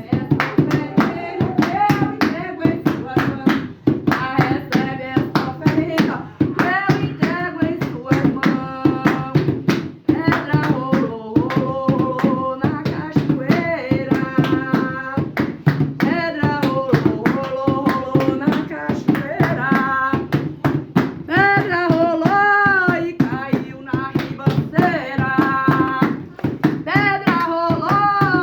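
Umbanda ponto (devotional chant) sung over fast, steady hand clapping.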